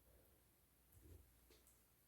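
Near silence: room tone with a low hum and a couple of very faint soft handling knocks.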